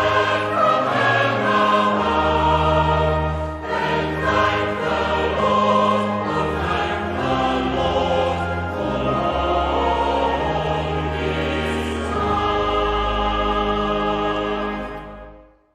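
Choral music with a choir singing sustained chords over a moving bass line, holding a final chord from about twelve seconds in and fading out just before the end.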